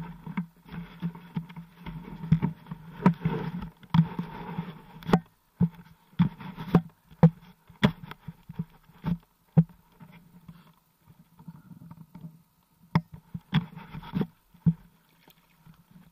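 Water splashing and sloshing as someone wades through shallow water beside a stand-up jet ski, with irregular sharp knocks and bumps. The engine is not running.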